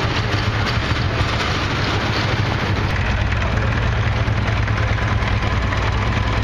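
Small vintage tractor's engine running steadily at low speed as it drives slowly past.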